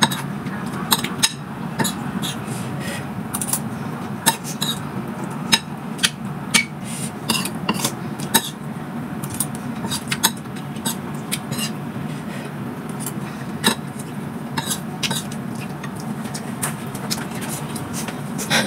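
Metal spoon and fork clinking and scraping against a ceramic plate of rice, in many irregular sharp clicks, over a steady low hum.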